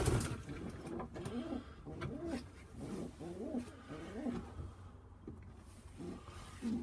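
Pigeons cooing in a loft: a run of low coos that swell and fall, one after another, with a few light knocks among them.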